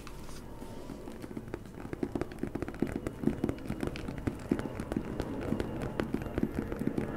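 Fingernails tapping and scratching rapidly right against the camera and microphone: a quick, uneven patter of small taps that gets denser and louder after the first second or so.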